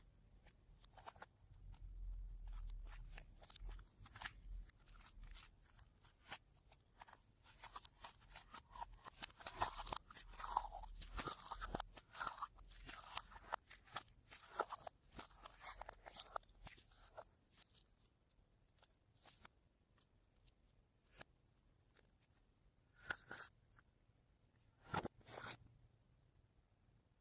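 Slime being squished and mixed by hand, crackling with many small clicks and crunches, dense for much of the time and then thinning out to a few isolated louder ones.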